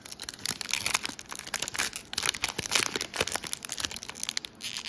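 Foil wrapper of a trading-card pack torn open and crinkled by hand: a dense run of sharp crackles.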